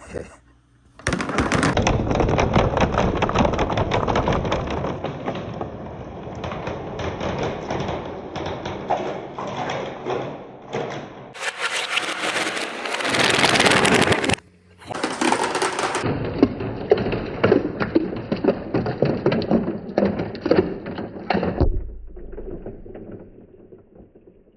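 Marbles rolling and clattering along a handmade wooden marble run: a dense stream of small clicks and knocks, with a loud rushing stretch about halfway through. The clatter thins out near the end.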